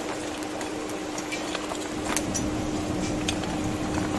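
Irregular sharp clicks and clinks of grilled oyster shells being handled and pried open, with a steady low hum underneath.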